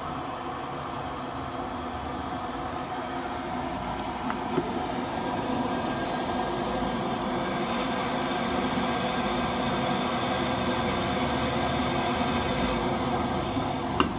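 Stainless-steel electric kettle (Kenstar Estella 1.6 L) heating water toward the boil: a steady rushing hiss and rumble of water starting to bubble, swelling slightly. Near the end come two sharp clicks as the lid is snapped shut, and the sound turns quieter.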